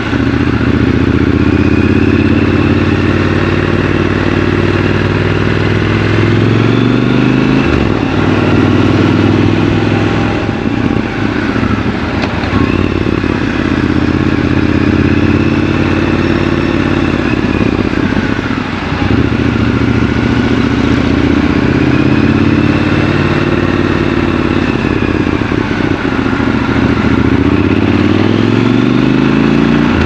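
Triumph Scrambler 1200 XC's parallel-twin engine under way, heard from the rider's seat. Its pitch climbs as it pulls and drops back several times as the rider changes gear or eases off.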